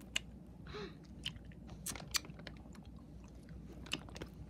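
Close-up mouth sounds of eating candy held to the lips: scattered sharp clicks of biting and crunching, with a short slurp just under a second in.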